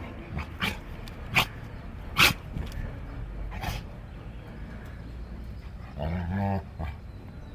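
Parrot mimicking a dog: several short, sharp bark-like yips spread over the first four seconds, then a longer pitched whining call about six seconds in.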